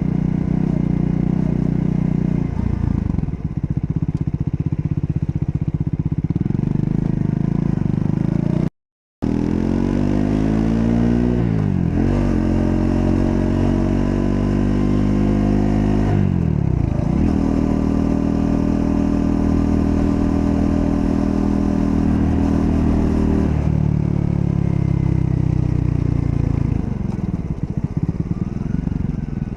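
Triumph Scrambler 400 X's single-cylinder engine riding under load. It revs up, drops in pitch at gear changes about twelve and sixteen seconds in, then holds steady cruising revs. The sound cuts out completely for about half a second around nine seconds in.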